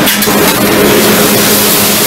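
Stir-fry sizzling on a large round flat-top Mongolian grill griddle, a loud steady hiss as metal spatulas work the food, with a steady hum underneath.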